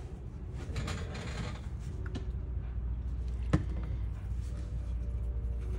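Light handling and rustling noises over a steady low hum, with a small click about two seconds in and one sharp click about three and a half seconds in.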